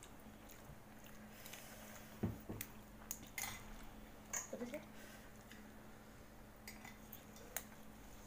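People eating instant noodles: scattered clicks of forks and spoons against plates, with soft chewing and slurping, over a faint steady hum.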